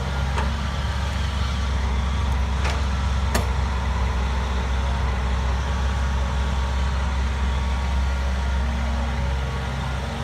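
Heavy diesel construction-machine engine running steadily, with a couple of sharp knocks about three seconds in.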